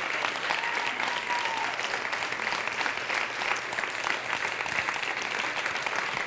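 Sustained applause from a large audience, many hands clapping at once without a break.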